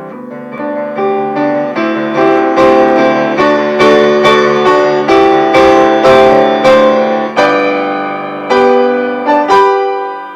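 Solo piano playing, with chords and a melody in a steady stream of struck notes that ring and fade; the notes space out and the sound dies away near the end.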